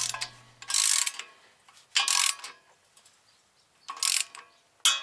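Ratchet wrench clicking in about five short bursts, roughly a second apart, as a bolt is run down.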